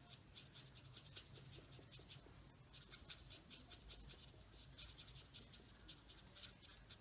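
Faint, quick scratchy strokes of a Stampin' Blends alcohol marker's broad tip on cardstock, shading in short repeated strokes.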